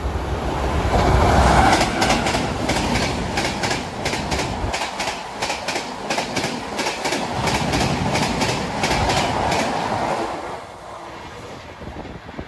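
WAP-5 electric locomotive and its AC chair car coaches passing at about 130 km/h. A loud rush as the locomotive goes by, then a fast, even run of wheel clicks over the rail joints as the coaches stream past, fading about ten seconds in.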